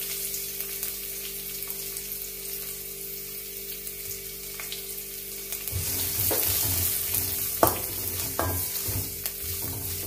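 Chopped onions sizzling in hot oil in a metal kadai, a steady hiss. From about six seconds in, a wooden spoon stirs them, scraping and knocking against the pan, with the sharpest knock a little past halfway.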